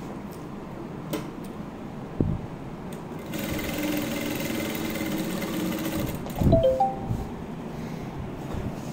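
FC-9200 direct-drive single-needle lockstitch industrial sewing machine stitching fabric in a steady run of about three seconds, with a hum and a higher whine. A thump comes before the run, and louder thumps with brief high tones come just after it stops.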